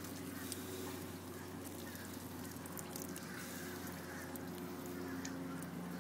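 70 hp outboard motor idling steadily.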